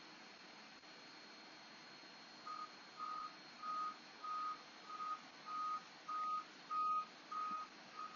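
A run of evenly spaced electronic beeps on one pitch, about two a second, starting a couple of seconds in, growing louder and then fading near the end, over a faint steady hiss.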